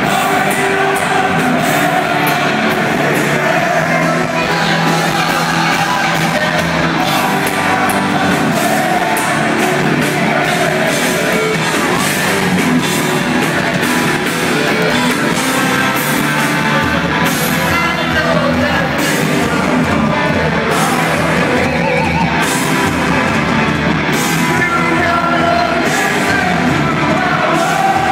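A heavy metal band playing live and loud over an arena PA, heard from the crowd: drums, guitar and a singer's voice, with yells from the audience.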